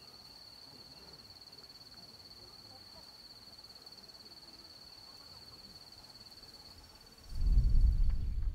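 A steady, high, finely pulsing insect trill, cricket-like, over faint outdoor ambience. About seven seconds in, loud low wind buffeting the microphone comes in and drowns it.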